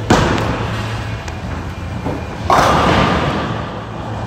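A bowling ball lands on the lane with a sharp thud. About two and a half seconds later comes the loudest sound, a clatter of pins being knocked down, which dies away over about a second.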